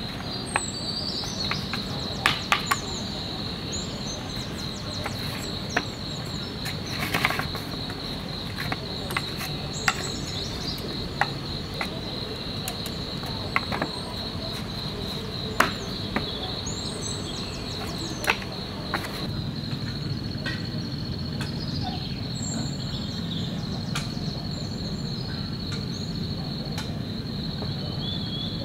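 Night crickets trilling steadily, with scattered sharp clicks and scrapes of chopsticks against a foil tray, over a low steady hum.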